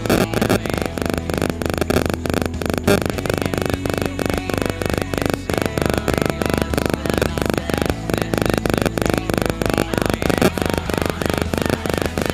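Loud, harsh electronic buzzing that pulses about four to five times a second over a steady low hum, starting and stopping abruptly.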